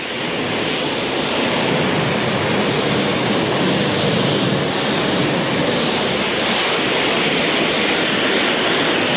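Cold-water pressure washer spraying a jet of water, a steady rushing hiss.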